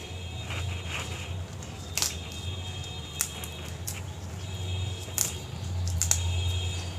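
Basak and tulsi leaves being torn by hand, giving short, sharp snaps and crackles every second or so, over a steady low hum.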